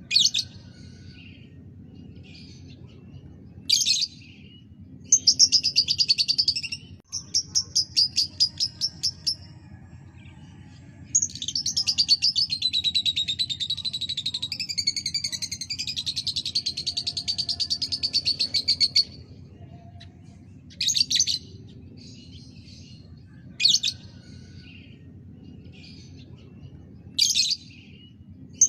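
Lovebird singing: short high chirps and quick bursts of chatter, then one long, fast rattling trill lasting about eight seconds, starting about 11 seconds in. This is the sustained chatter ('ngekek') used as a lure recording to get other lovebirds singing.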